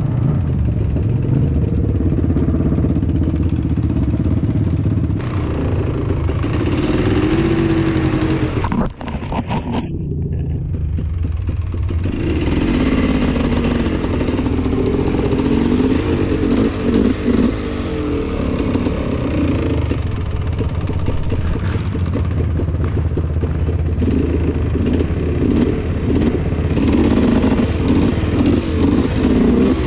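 Polaris Scrambler 400 two-stroke ATV engine running under way, its revs rising and falling with the throttle. The revs drop off briefly about nine seconds in, then build again.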